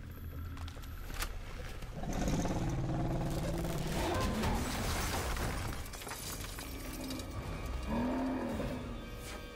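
Action-film sound mix under a low rumble: a sharp hit about a second in, then a denser, louder layer of effects and score from about two seconds, with two rising-and-falling creature-like calls.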